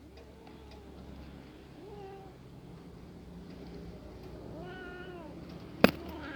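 A cat meowing a few times, the last meow the loudest and longest. A single loud sharp click comes near the end.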